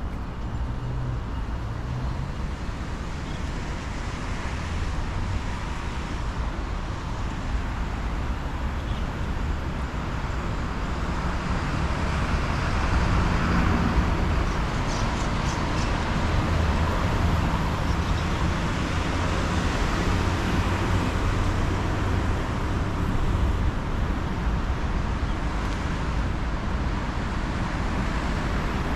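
Steady city traffic noise: a continuous low rumble with hiss, a little louder from about halfway through.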